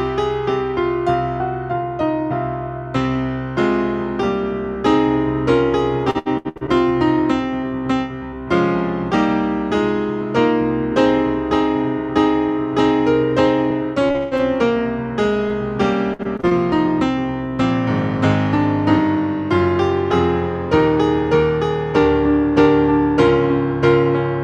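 Solo piano playing a postlude: a steady flow of struck notes and chords over a moving bass line.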